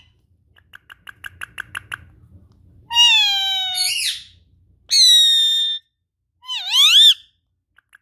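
Indian ringneck parakeet calling close to the microphone: a quick run of short chattering chirps, about eight a second, then three loud drawn-out calls, the last one rising and wavering.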